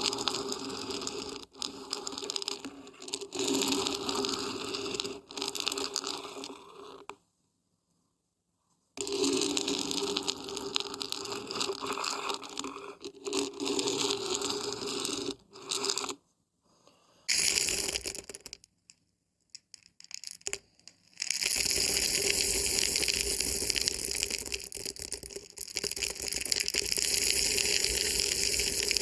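Dried beans and barberries rattling and scraping as they are shaken, in stretches broken by two short silences. For the last several seconds the rattling gives way to a steady, dense rushing of the grains.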